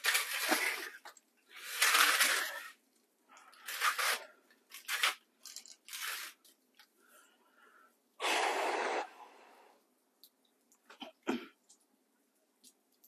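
A person's sharp, forceful breaths while exercising: a string of breathy bursts, each half a second to a second long, coming every second or two.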